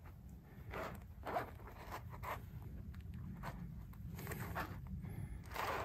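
A series of brief raspy rustling and scraping sounds, about six, the last the loudest, as hands handle hot dog buns and sausages on a plastic cutting board. A steady low rumble runs underneath.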